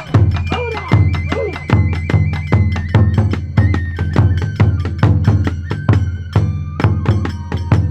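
Kagura festival music: a large drum beats steadily over a fast, even clatter of sharp percussion strikes, while a bamboo flute holds high notes that step up and down.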